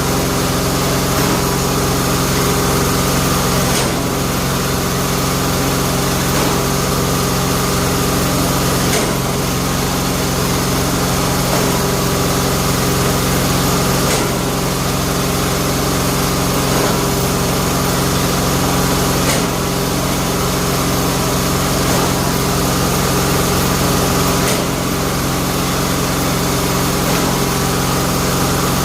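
Bamboo splitting machine running steadily under its motor, with a short change in the sound about every five seconds.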